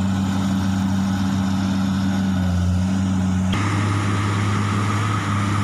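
Komatsu excavator's diesel engine running steadily under work. About three and a half seconds in, the note changes abruptly and a thin, higher whine joins it.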